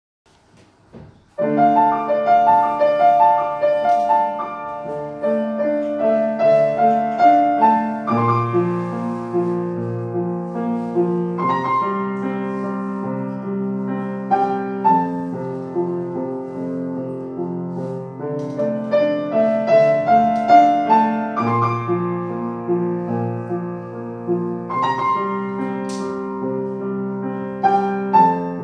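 Grand piano played solo, a melody over chords and bass notes, starting about a second and a half in.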